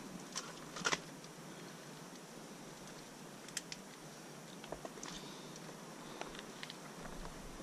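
Faint, scattered clicks and light knocks of a pistol and gear being handled in gloved hands, a few spread over several seconds above a low steady hiss.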